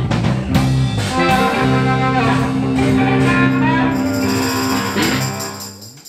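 Live blues band of electric guitars, bass, keyboard, drums and harmonica ending a shuffle: a few last accented hits, then a long held final chord with ringing cymbals that fades away to nothing near the end.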